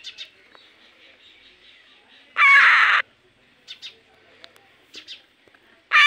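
Baby parrots calling: one loud, harsh screech lasting about half a second, a little over two seconds in, and another starting at the very end, with soft short chirps and clicks in between.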